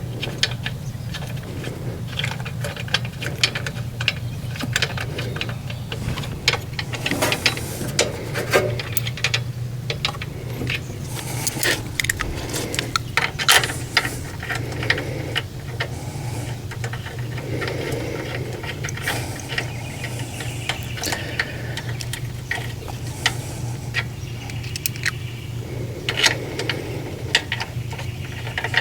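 Hand ratchet clicking and metal tools clinking in short, irregular spurts while bolts are tightened during engine reassembly, over a steady low hum.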